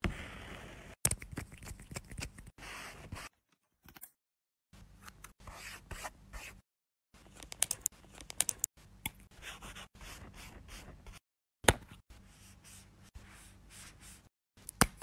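Close-up scratching and rubbing of makeup being put on a drawn paper face: a pencil stroking the paper and fingers and a sponge rubbing over it. The takes are spliced short, with sharp clicks now and then and a few sudden silent gaps.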